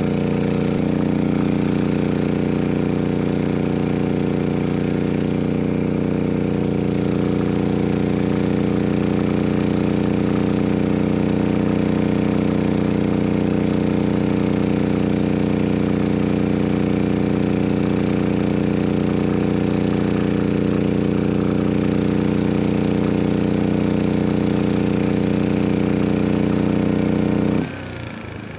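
MAXPEEDINGRODS MXR5500 inverter generator's engine running steadily under a load above its 5,000-watt rating, not sounding out of power. About 27 s in, the overload protection shuts off the output and the sound drops sharply.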